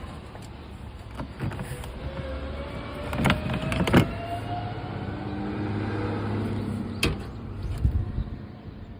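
Toyota Noah starter motor giving its abnormal noise on a start: a rising whine with two loud clunks a few seconds in, followed by a steady low hum and a few lighter clicks.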